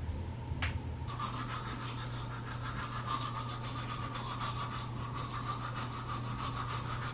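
A click, then an electric toothbrush starts about a second in and buzzes steadily while brushing teeth.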